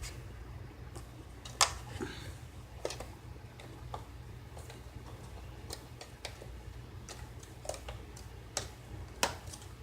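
Irregular sharp plastic clicks and snaps as the Toyota Tundra's dash bezel is pried off its retaining clips, the loudest about one and a half seconds in, over a low steady hum.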